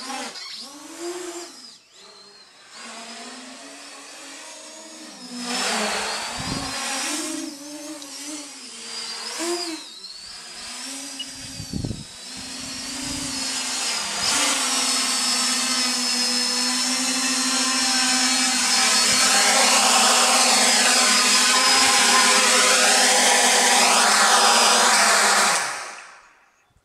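Brushless motors and propellers of a 450-size quadcopter whining, the pitch rising and falling with the throttle as it flies. From about the middle it is louder and steadier, then the motors wind down and stop near the end.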